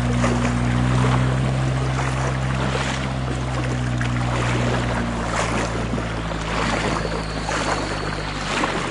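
A 4x4 engine running at steady low revs while the vehicle wades through a river crossing, with water rushing and splashing around it.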